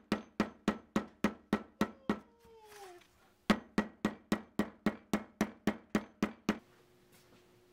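A hammer tapping the contact-cemented edges of a leather knife sheath on a granite slab to press the two layers together: quick, even taps about four a second, a short pause a little past two seconds in, then another run of taps that stops about two-thirds of the way through.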